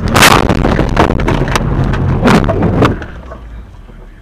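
A car crash: a loud bang, then a run of crunching, clattering impacts for about three seconds that stop abruptly.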